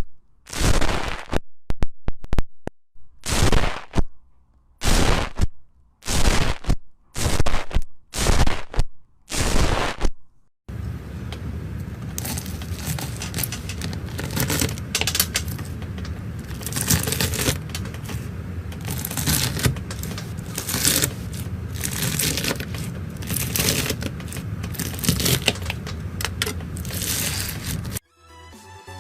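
Slime being squeezed and pressed by hand, with wet crackling and popping: first a string of separate short squishes with silent gaps, then about ten seconds in a long unbroken stretch of dense crackling.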